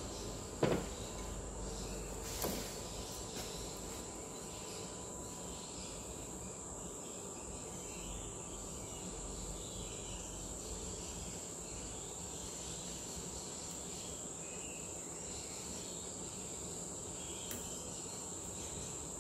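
Quiet workshop background with a steady, thin high-pitched whine, and a couple of light clicks in the first few seconds as metal driveshaft parts are handled.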